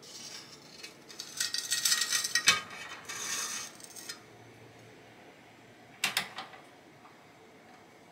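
Metal tools and the freshly fired enamelled copper bowl scraping and clinking as the bowl is slid off a metal spatula onto a mesh pad. A couple of seconds of clattering with a sharp clink in the middle, then a few more light clicks near the end.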